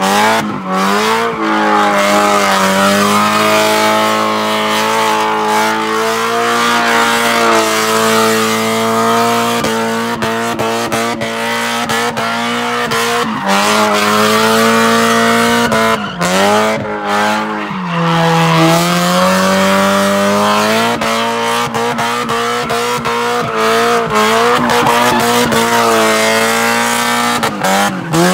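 A Mazda Miata's four-cylinder engine is held at high revs while the rear tyres spin and squeal through continuous donuts. The revs dip briefly about four times, near the start, about 13 s in, around 18 s and near the end, then climb back up.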